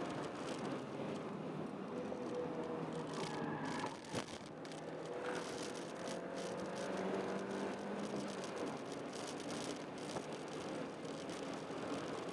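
2005 Honda Jazz 1.3 four-cylinder engine pulling under load on a racetrack lap, with tyre and road noise and light cabin rattles. About four seconds in the engine note dips with a short tick, as at a gear change, then the pitch climbs again.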